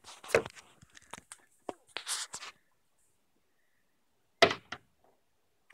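Scattered light knocks and a brief swish, then one louder thump about four and a half seconds in.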